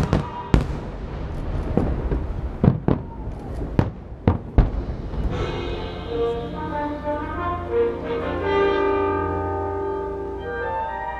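Fireworks shells bursting: about eight sharp bangs over the first five seconds, over a low rumble. About five seconds in, orchestral music with long held notes takes over.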